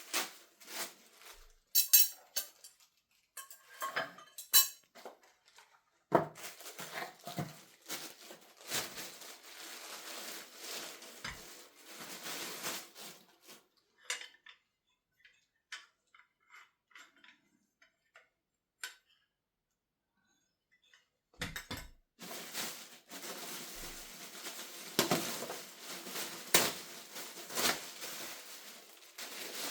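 Metal parts clinking and knocking as they are handled and unpacked, with stretches of rustling packaging; a quieter spell with only a few light ticks comes about halfway through.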